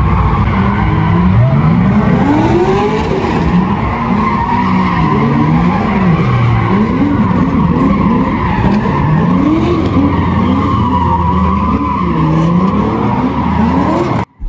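A car's tyres squealing steadily while its engine revs rise and fall about once a second, as the car spins its wheels. The sound cuts off suddenly near the end.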